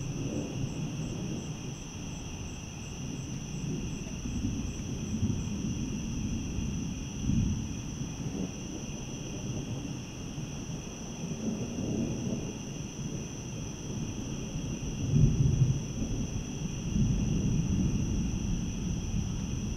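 Distant thunder rumbling low and continuously, swelling louder about seven seconds in and again about fifteen seconds in, with a steady high-pitched drone above it.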